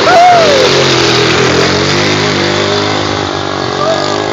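ATV engine running while being ridden, a steady hum whose pitch wavers slightly, over a rush of wind and road noise.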